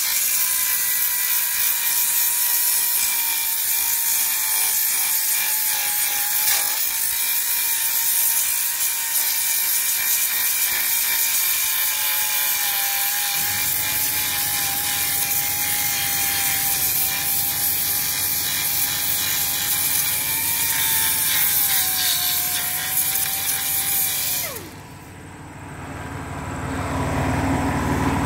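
Facom pneumatic finger belt sander with a 40-grit belt grinding rust off a steel chassis rail: a steady whine over a loud hiss, its pitch sagging a little as it bears on the metal. About 25 seconds in the trigger is released and the whine falls away quickly. A low rumble runs underneath through the second half.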